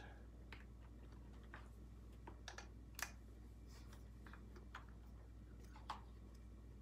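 Faint, scattered clicks and taps of small parts being handled and fitted by hand on a Husqvarna 246 chainsaw's carburetor and intake, about a dozen irregular ticks with the sharpest one about three seconds in, over a low steady hum.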